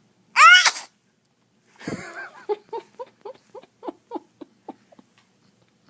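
A baby's sneeze: one loud, short, high-pitched burst just under half a second in. About a second later comes a run of about ten short laughing pulses, about four a second, trailing off.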